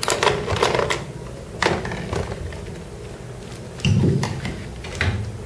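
Handling clicks and knocks as a digital rotational viscometer head is fitted onto its stand rod: a few sharp clicks, then a duller knock about four seconds in.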